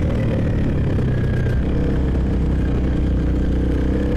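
Motorcycle engine running steadily, its note dropping about a second and a half in.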